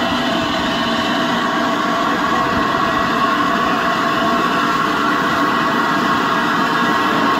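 LNER A3 steam locomotive Flying Scotsman (60103) standing, giving off a steady, loud hiss of steam.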